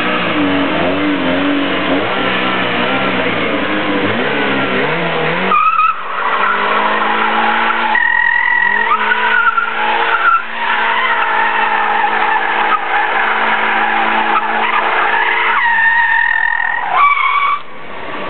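Daewoo Nexia sliding in circles with its engine held at high revs and its tyres squealing. The engine note rises and falls for the first few seconds. After that the tyre squeal holds long, steady tones, then cuts off shortly before the end.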